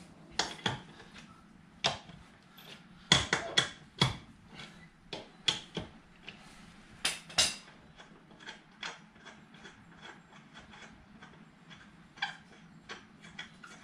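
Socket wrench on an ATV wheel's lug nuts: sharp metal clanks and knocks as the nuts are broken loose, then quick runs of small ratchet clicks as they are turned off.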